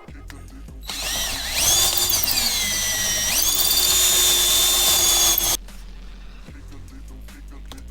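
Power drill running for about four and a half seconds, its pitch sagging under load, then jumping up about three seconds in and holding steady until it cuts off suddenly.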